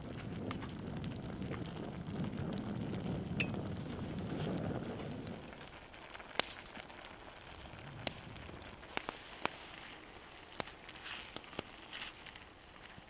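Jjajang ramen sauce simmering and sizzling in a cast iron skillet. It bubbles steadily for the first five seconds, then eases off, leaving scattered sharp ticks and crackles as wooden chopsticks stir the noodles against the pan.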